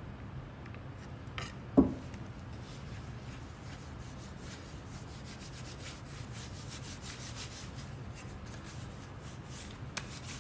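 Rubber-gloved hand rubbing varnishing oil into a flat wooden panel: a dry, scratchy rubbing made of many small strokes, busiest in the middle. A single sharp knock about two seconds in is the loudest sound, with a smaller click near the end.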